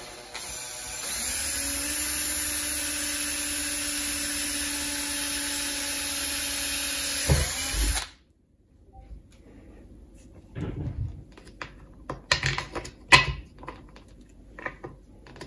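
Power drill boring a hole through the wall of a PVC pipe, running steadily for about eight seconds after speeding up in the first second, then winding down and stopping. Scattered clicks and knocks follow as an M5 bolt and nut are fitted into the hole, the sharpest about three seconds before the end.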